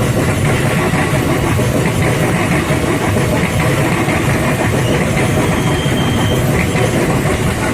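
Electric commuter train close by, a steady loud rumble and hum with no break.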